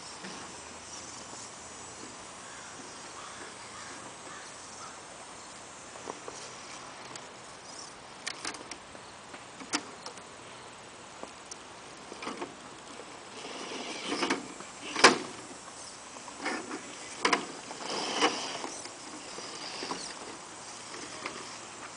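Radio-controlled scale crawler driving slowly over dirt, rocks and logs: its small electric drive motor whines faintly under scattered knocks and crunches from the tyres and chassis on stones. The knocks and scrapes bunch up in the second half, with the loudest about fifteen seconds in.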